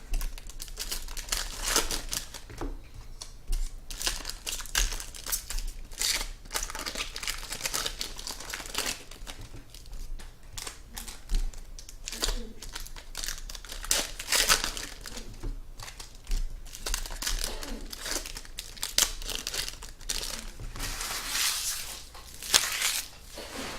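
Trading card pack wrappers crinkling and tearing as packs are opened and cards handled, an irregular run of short rustles.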